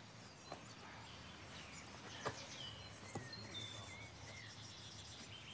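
Quiet outdoor ambience with birds chirping faintly. A soft knock comes about half a second in, and a sharper knock a couple of seconds in.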